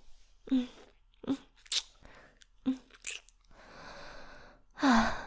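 A woman's close-up mouth and kissing sounds: a few short hums and sharp lip smacks, then about a second of breathy hiss, and a louder breathy hum near the end.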